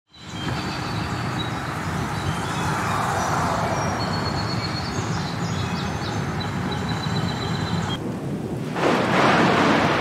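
Cartoon sound effects: a low vehicle engine hum under forest ambience with birds chirping. The birdsong stops about eight seconds in and a louder whoosh swells up near the end.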